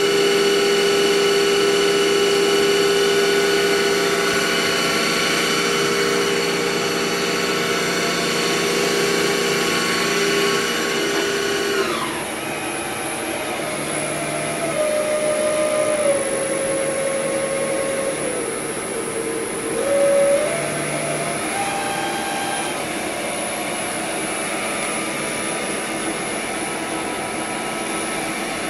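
2002 Hurco VM2 CNC vertical mill running, a steady whine of several tones. About twelve seconds in the tones fall away as the machine slows, then shorter tones step up and down in pitch several times.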